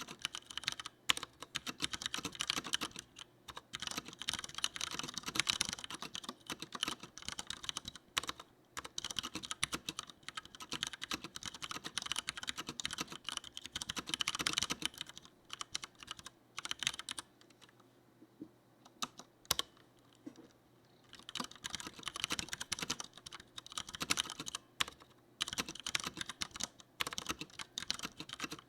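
Fast typing on a Leopold FC900R mechanical keyboard with Cherry MX Brown tactile switches, a rapid run of key clicks. Past the middle the typing stops for a few seconds with only a few single keystrokes, then fast typing starts again.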